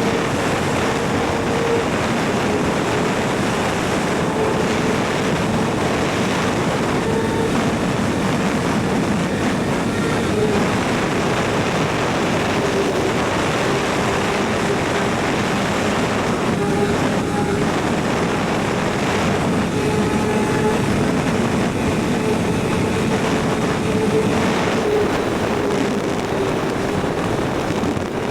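Kawasaki ZX6R's inline-four engine running at a steady high pitch while riding, the note drifting slightly, with wind rushing over the microphone.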